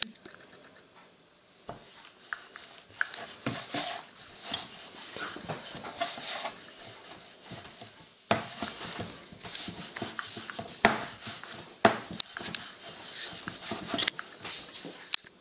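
Wooden rolling pin rolling out pizza dough on a floured wooden board: irregular knocks and clatter of wood on wood over a rolling, scraping rustle, with the sharpest knocks from about eight seconds in.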